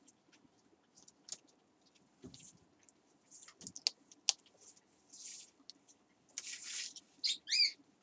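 Pet parrots close by: scattered small clicks and taps, two short breathy rushes of noise, and a brief squeaky call near the end.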